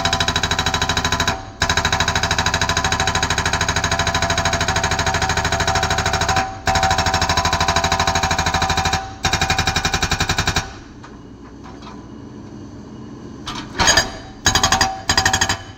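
Excavator-mounted hydraulic breaker hammering rock in rapid, even blows, stopping for brief moments between long runs. Near the end it falls quiet for a few seconds, then hammers again in short bursts.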